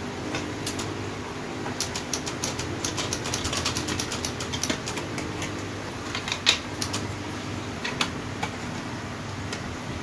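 Brother portable typewriter being handled by hand: a quick run of light clicks and rattles from its metal and plastic parts, then a few single sharper knocks, the loudest about six and a half seconds in, over a steady low hum.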